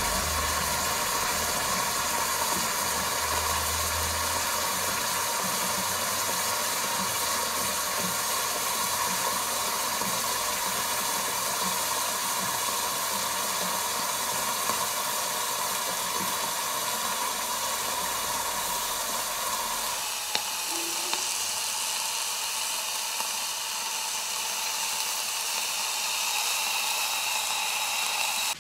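Steady hissing and sizzling of a red-hot metal ball sitting submerged in liquid at the bottom of a glass jar, boiling the liquid around it. The hiss thins out about twenty seconds in.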